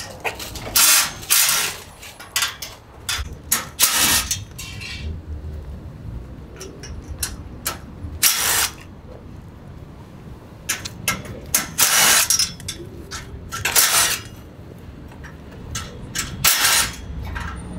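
Cordless drill run in repeated short bursts, about half a second each, backing bolts out of a steel motorcycle shipping crate, with a few light knocks in between.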